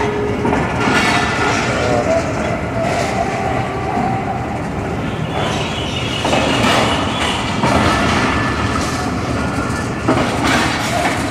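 Pakistan Railways passenger coaches rolling slowly past a station platform as the Jaffar Express pulls out: a steady rumble of wheels on the rails.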